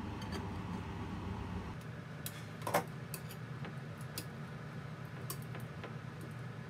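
Light clicks and taps of kitchen utensils being handled, with one sharper clack nearly three seconds in, over a steady low background hum.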